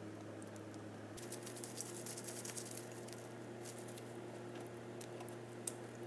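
Faint kitchen handling sounds: light taps and clicks of hands laying raw chicken breasts out on a plastic cutting board, over a low steady hum.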